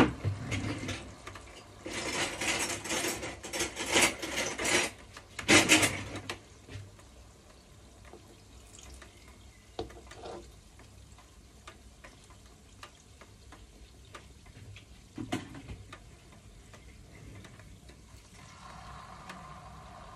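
Metal spoon stirring and scraping in a nonstick wok of frying fritters, with a busy run of scrapes and clatters in the first six seconds. After that come only occasional light taps and clinks against the pan.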